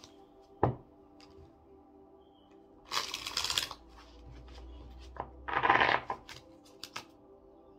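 Deck of oracle cards shuffled by hand: a sharp tap just under a second in, then two short bursts of cards rustling and sliding, around three and six seconds in. Faint background music runs underneath.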